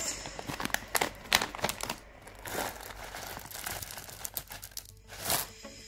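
Plastic pouch of Nestlé Smarties crinkling and rustling as hands open it and pour the sugar-shelled chocolates out into a palm. There is a run of sharp clicks and crinkles in the first two seconds, then softer rustling, with a louder rustle a little past five seconds.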